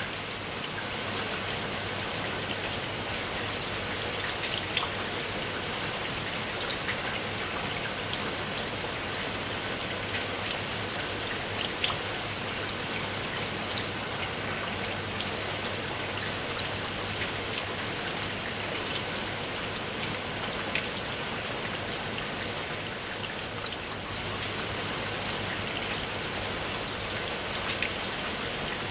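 Heavy rain falling steadily, a dense hiss full of the quick ticks of individual drops striking.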